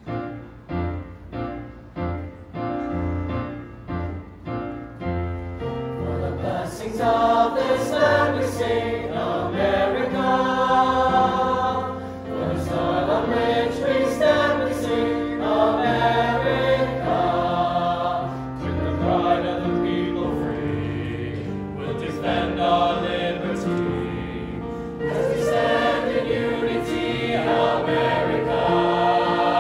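Mixed high school choir singing in parts with piano accompaniment. The piano opens alone with evenly repeated chords, and the voices come in about six seconds in.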